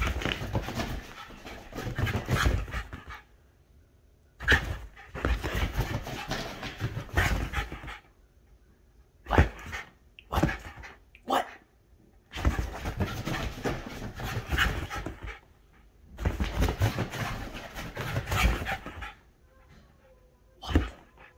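A corgi panting hard in bursts of a few seconds, with short quiet pauses between them: out of breath from running zoomies.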